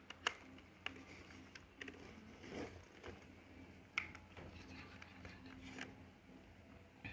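Small plastic clicks and short scrapes of a compact camera being handled as its battery compartment is opened and the battery pack taken out; a handful of sharp clicks, the loudest about four seconds in.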